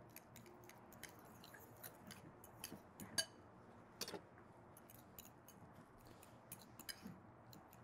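Faint clicking and scraping of a utensil against a bowl, mixing a paste of roasted garlic, miso and scallions, with a couple of sharper clicks about three and four seconds in.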